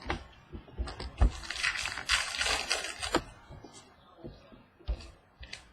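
Football trading cards being handled and flipped through by hand: a rustle of cards sliding over one another for about two seconds in the middle, with several light taps and clicks of cards before and after.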